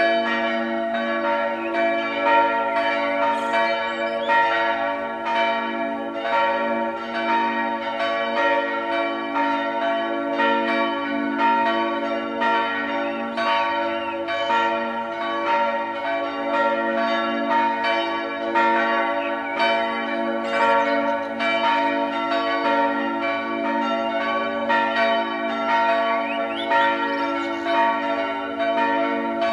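Swinging church bells of a four-bell parish church peal ringing together. Their strikes overlap and follow one another steadily with no pause, and each bell's tone rings on.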